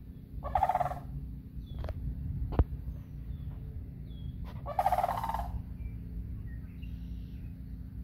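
Sandhill cranes calling: two loud, rolling, rattling calls about four seconds apart, with a single sharp click between them.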